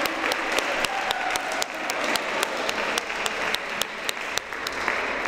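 A group of people applauding, with one pair of hands close by clapping sharply in a steady rhythm, about three to four claps a second.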